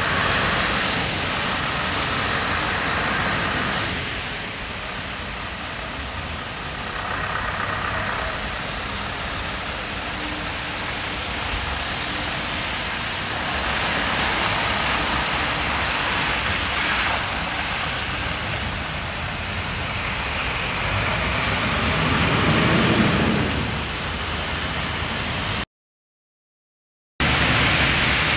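Scania R560 tractor unit's V8 diesel engine running as the truck drives around on wet tarmac, under a steady hiss of tyres on the wet surface and rain. The low engine sound swells briefly near the end, then the sound cuts out for about a second and a half and comes back.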